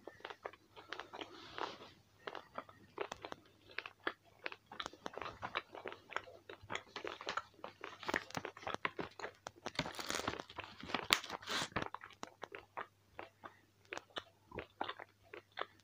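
Close-up chewing of a thick, moist piece of biltong (dried beef): irregular wet mouth clicks and smacks, busiest about halfway through.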